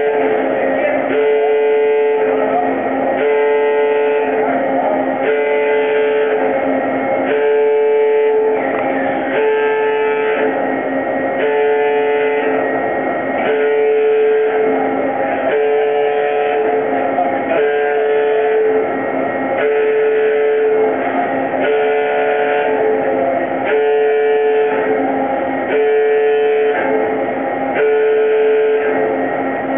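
Tunnel boring machine's warning alarm, a tone repeating about every two seconds over a steady hum. It sounds while the machine's hydraulic arms lift a concrete lining segment into place, as a signal for workers to stay clear of the arms.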